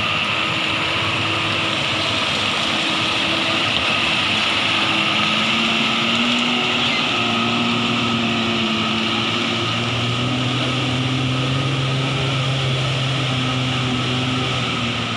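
Diesel engine of a heavy tanker truck pulling through deep mud, running steadily under load with a hissing roar over it. The engine note rises and gets stronger about two-thirds of the way through.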